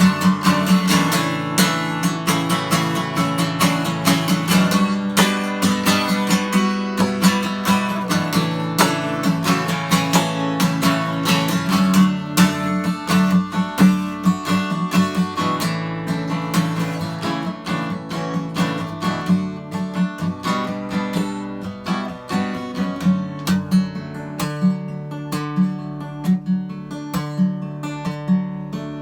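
Acoustic guitar strummed steadily in an instrumental passage of a song, with no singing, growing a little softer towards the end.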